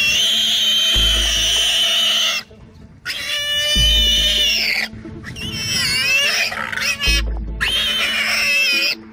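Warthog squealing in distress while pinned and bitten by a leopard: a run of long, high-pitched squeals of about two seconds each with short breaks between, one wavering up and down about six seconds in.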